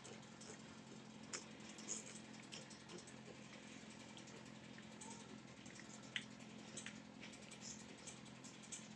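Faint, scattered light taps and rustles of wood-shaving bedding as a piglet is set down and moves about its pen, over a steady low hum.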